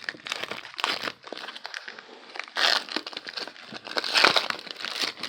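Baseball card packs being handled: crinkling of pack wrappers and rustling, clicking cards, in irregular bursts.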